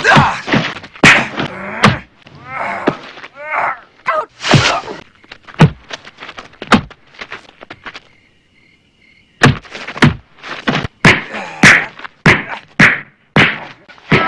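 Fight-scene punches and kicks landing: a rapid series of sharp whacks and thuds, with grunts and groans between the blows. The blows stop for about a second around eight seconds in, then resume in quick succession.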